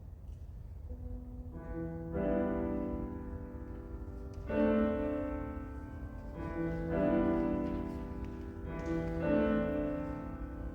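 Piano playing slow, sustained chords, a new chord struck about every two and a half seconds, beginning about a second and a half in.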